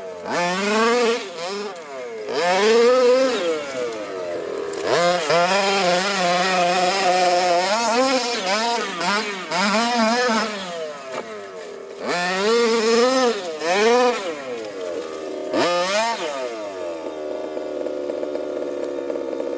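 HPI Baja 5T RC car's 26 cc two-stroke petrol engine with a Jet-Pro tuned exhaust pipe, revving up and down again and again under throttle. It settles into a steady idle near the end.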